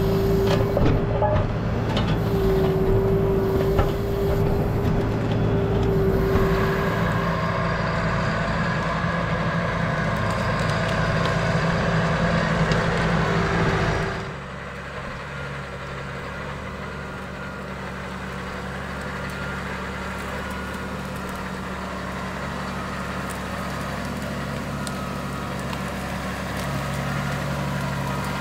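Valtra tractor's diesel engine running steadily as it pulls a forest mounder through the ground. It is close and loud with a steady whine for the first half, then drops suddenly to a quieter, more distant engine drone.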